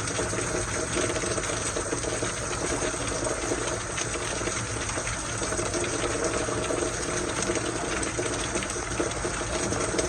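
Steady rain falling, with water running and splashing in a continuous even hiss.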